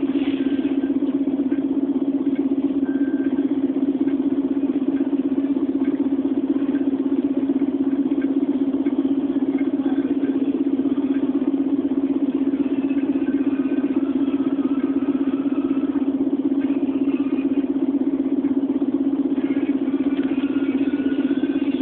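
Volvo Olympian double-decker bus's diesel engine idling steadily while the bus stands still, heard from inside on the upper deck.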